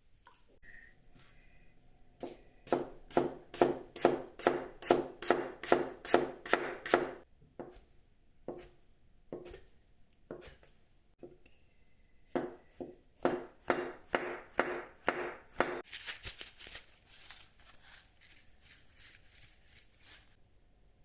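A kitchen knife chopping on a cutting board in quick, even strokes of about three a second, then a few single cuts and a second run. This is typical of scoring thin slices into a potato for hasselback potatoes. Near the end comes a softer, hissier run of strokes.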